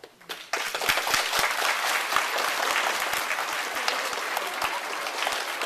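An audience applauding, breaking out suddenly about half a second in and holding steady.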